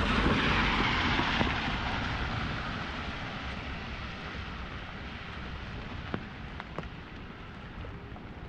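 A vehicle passes on a wet street: a tyre hiss that is loudest at the start and fades away over about three seconds. Under it, steady rain falls on an umbrella, with a few sharp drop ticks near the end.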